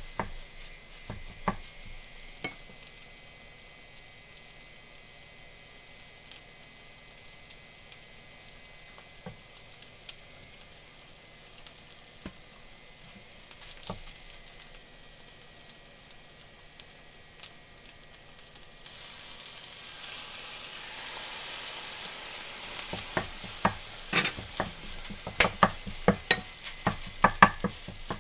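Egg fried rice sizzling in a metal frying pan while being stirred with a wooden spatula, with scattered taps and scrapes of the spatula against the pan. About two-thirds of the way through the sizzle grows louder, and over the last few seconds the spatula strikes come quicker and sharper.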